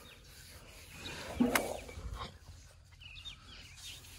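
Small birds chirping in the background. About a second and a half in there is a short, louder low rustle with a sharp click.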